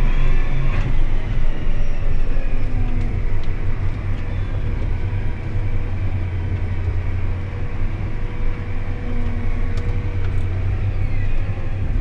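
Farm tractor's diesel engine running in a steady low drone, heard from inside the cab as it pulls a full grain wagon at low speed; the engine note eases slightly about four seconds in.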